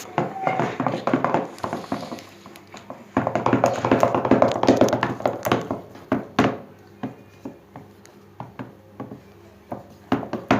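A spoon stirring a yogurt slime mixture in a bowl, with quick taps and knocks against the bowl. They come thick in the first six seconds and sparser after that.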